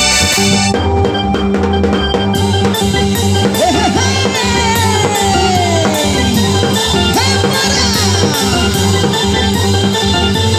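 Loud endeng-endeng dance music: a melody line with a steady drum beat that comes in about two seconds in, and gliding, pitch-bent lead notes over it.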